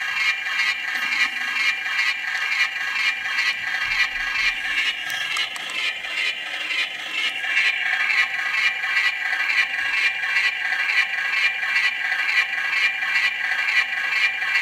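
Electric buzzing and crackling from a flux capacitor replica, pulsing in a rapid, even rhythm that keeps time with its chasing lights.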